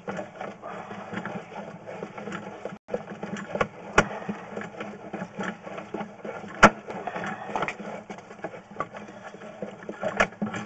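Sewer inspection camera's push cable being hauled back out of the pipe: a steady rattling mechanical noise with a few sharp knocks, the loudest in the middle.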